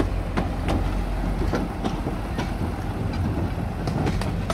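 Small diesel locomotive running as it pulls carriages past, its engine a steady low note, with irregular clicks from the wheels going over the rail joints.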